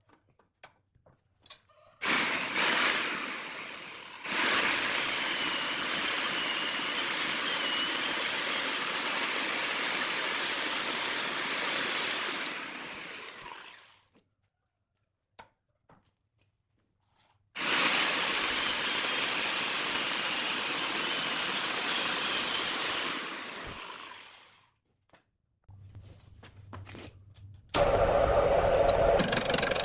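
A power tool cutting wood in two long runs, each starting suddenly and winding down over a second or two. Near the end a different, steady lower machine hum starts.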